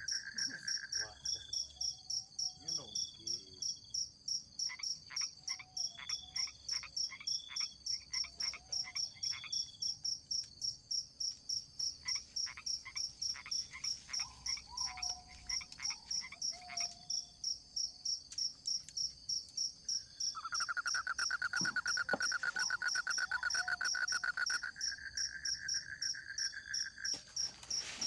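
Forest night chorus of insects and frogs: a high, steady, rapidly pulsing chirp throughout, joined by runs of short repeated calls and, about twenty seconds in, a lower trill lasting several seconds.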